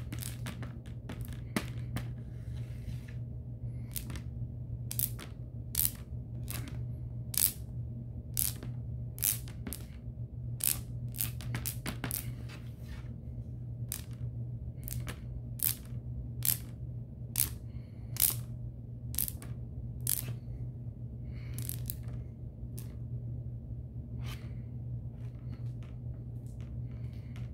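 Metal spreading knife clicking against the studs of a plastic Lego baseplate as it spreads glue, sharp irregular clicks about one or two a second with short scrapes, over a steady low hum.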